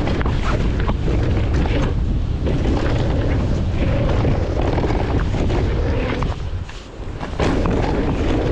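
Wind buffeting the camera microphone as a mountain bike rolls fast down a dirt trail, with tyre noise on the dirt and many short clicks and rattles from the bike. The noise drops for about a second some six seconds in, then comes back sharply.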